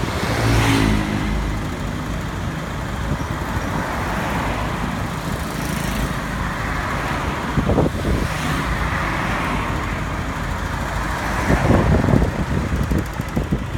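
Road traffic noise: motor vehicles passing, swelling louder about a second in, around eight seconds and again near twelve seconds.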